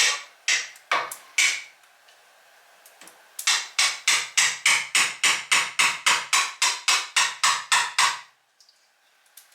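Hammer blows: four single strikes, then after a short pause a fast even run of about twenty quick taps, about four a second, which stops about 8 seconds in.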